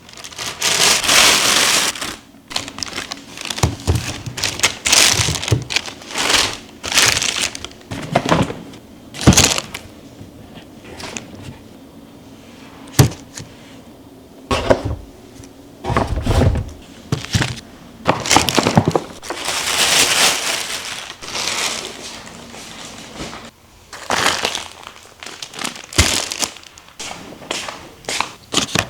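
Irregular handling sounds in a small room: crinkling and rustling, broken up by scattered sharp knocks.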